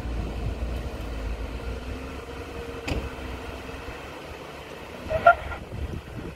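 Jeep Wrangler engine running steadily under load as it crawls up a steep slickrock slope, a low drone. A short click comes about three seconds in, and a brief, loud pitched sound about five seconds in.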